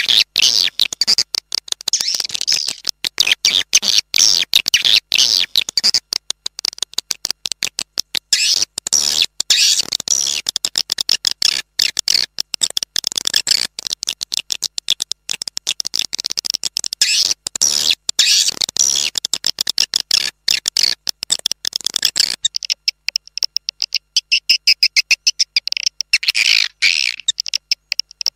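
Swiftlets calling: a dense, continuous stream of rapid high-pitched chirps and twitters, the kind of swiftlet call track played to attract birds to a nesting house. About two-thirds of the way in, the lower part of the sound drops away and only the high chirps remain.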